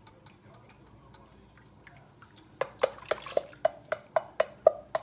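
Rinsed pieces of food dropped one by one into a metal pan. From about halfway in, about ten quick knocks, around four a second, each with a short metallic ring.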